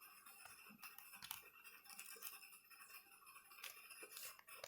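Faint scratching and a few light clicks as the bottom cover of a laptop is handled and worked at after its screws are out.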